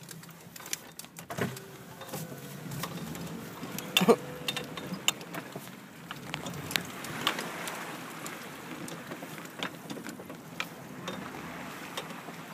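Chevy Z71 pickup wading through muddy pond water, heard from inside the cab: the engine runs steadily under the wash and slosh of water along the body. Scattered clicks and knocks cut through, with a sharp thump about four seconds in.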